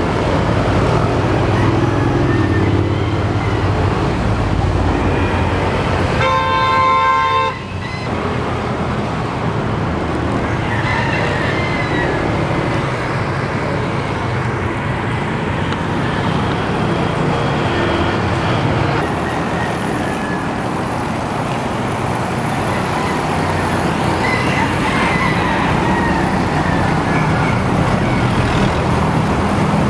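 Steady city street traffic noise, with a single horn blast about a second and a half long about six seconds in.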